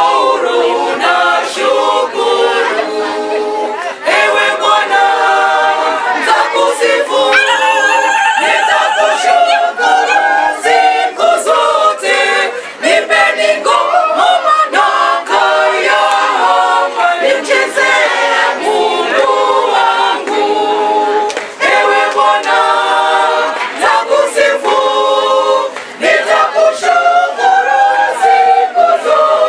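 Church choir singing a Swahili hymn together, unaccompanied, many voices at full strength with brief breaks between phrases.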